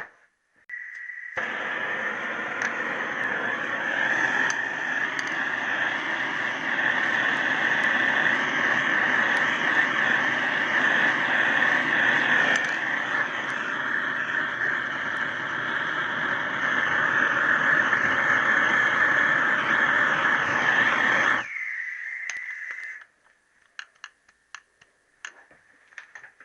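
A heating tool blowing steadily for about twenty seconds, warming an aluminium piston so its gudgeon pin can be drawn out of a worn little end. A thinner, higher hiss starts just before the main rush and carries on for a moment after it cuts off abruptly.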